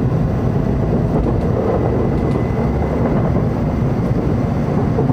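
N700 series Shinkansen running at speed, heard from inside the passenger car: a steady low rumble of running noise.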